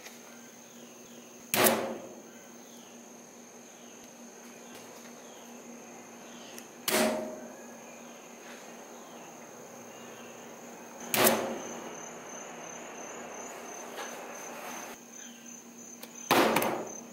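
Steady high-pitched insect chirring from the surrounding trees, interrupted four times by a sudden loud sound that fades within about half a second, spaced about four to five seconds apart.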